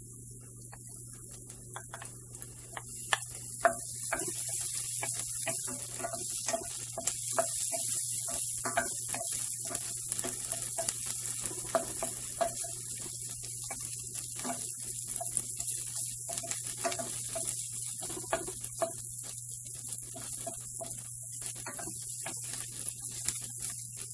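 Chopped red onion and garlic sizzling in oil in a stainless-steel frying pan, stirred with a wooden spatula that scrapes and knocks against the pan. A couple of sharp knocks come about three seconds in, and the sizzle grows louder from there; a low steady hum runs underneath.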